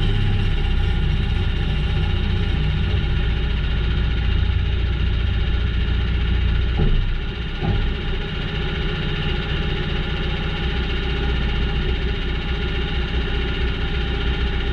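Engine of a log sawmill running steadily, with a short dip in level about halfway through. It cuts off suddenly at the end.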